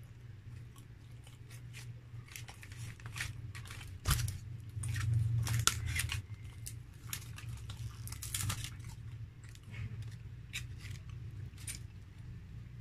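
Clicks and crinkles of a disposable drink cup and its lid being handled and opened over aluminium foil, with a knock about four seconds in. A steady low hum runs underneath.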